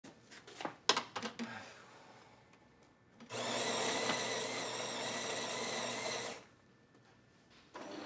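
A ceramic mug clatters as it is set on the drip tray of a fully automatic espresso machine, and a few seconds later the machine runs with a steady mechanical whirr for about three seconds, then stops. Music comes in near the end.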